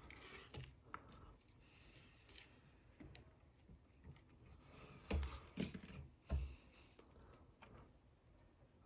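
Faint clicks and light handling noises from hands and small metal tools working at a fly-tying vise, with a few soft thumps a little past halfway.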